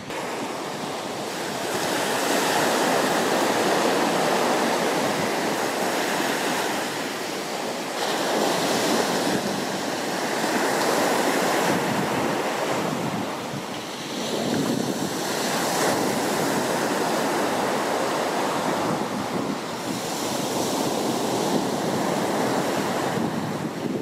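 Black Sea surf breaking and washing up a sandy beach, a steady rush that swells and eases every few seconds as each wave comes in.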